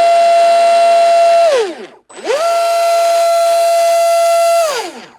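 RC boat's 4082 brushless motor and drivetrain throttled up out of the water: a high, steady whine held at one pitch that winds down, then climbs quickly back to the same pitch, holds about two seconds and winds down again near the end.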